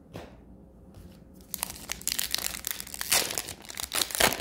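Foil wrapper of a hockey card pack being torn open and crinkled by hand: a dense crackle that starts about one and a half seconds in and is loudest near the end.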